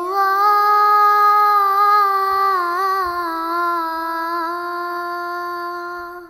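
A high voice holding one long sung note in an Islamic devotional chant, steady, with a slight waver in pitch about halfway, fading near the end.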